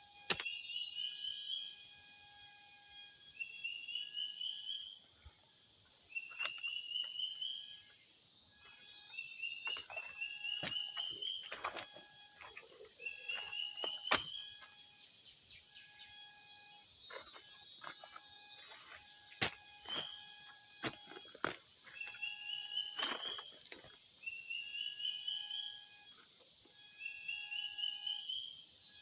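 Forest insect chorus: a steady high-pitched buzz, with a short call of pulses that climbs in pitch and repeats every two to three seconds, and a lower steady tone that comes and goes. Scattered sharp clicks and knocks break in now and then.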